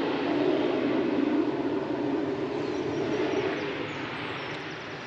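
A passing vehicle: a rushing noise with no clear engine note that is loudest at first and fades away over the last couple of seconds.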